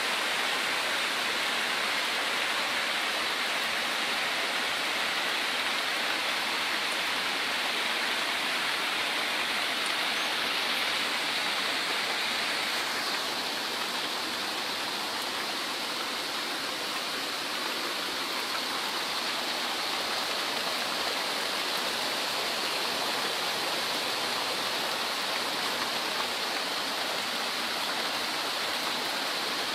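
Steady rush of water during heavy rain: rain and runoff pouring and splashing, easing a little about a third of the way through.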